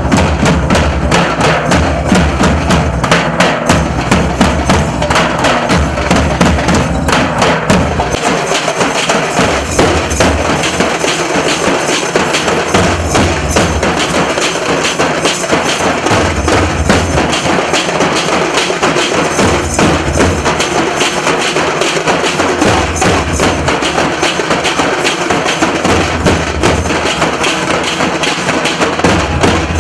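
Nashik dhol drumming: a loud, dense rhythm of rapid stick strikes, with deep bass beats coming in regular pulses every couple of seconds.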